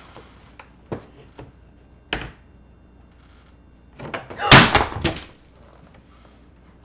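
A framed picture falls from the wall and crashes down, its glass cracking, about four and a half seconds in, with a few quick impacts in a row. Before that come a few light knocks as the frame is handled against the wall.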